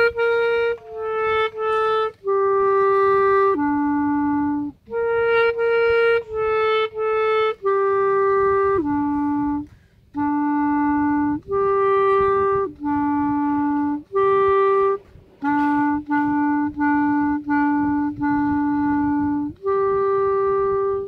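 Solo clarinet playing a simple beginner band melody in quarter and half notes, some slurred together, moving by small steps in a narrow range. The opening phrase is played twice, then the tune goes on, with short breaks for breath between phrases.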